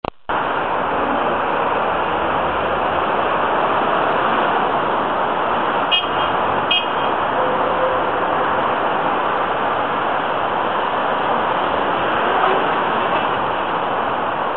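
Steady wash of city road traffic, engines and tyres from many cars, vans and buses on a busy multi-lane road below. About six seconds in, two short horn beeps sound less than a second apart.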